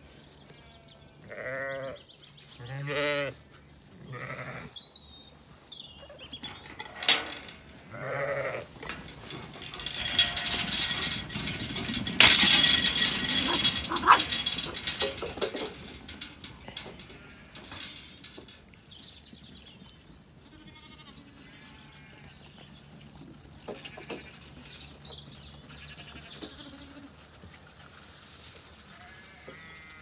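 Zwartbles sheep bleating, four or five short calls in the first several seconds. A louder stretch of rustling noise follows in the middle, the loudest part.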